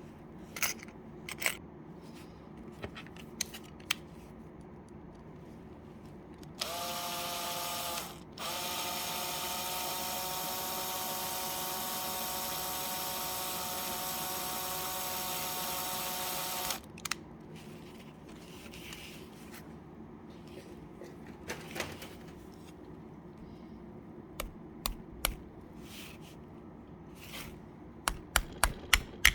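Electric drill motor running at a steady speed in two goes: a short run of about a second and a half, a brief stop, then about eight seconds unbroken. The drill is being assembled with 3D-printed gears. Scattered clicks and knocks of handling parts come before and after the run.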